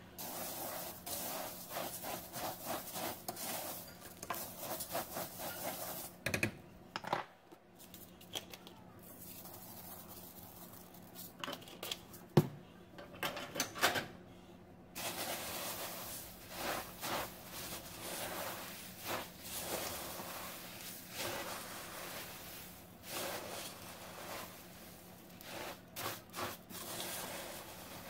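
Spatula stirring crisp rice cereal into melted marshmallow in a stainless steel pot: dry rustling and scraping in spells with short pauses, and now and then a sharp click of the spatula against the pot.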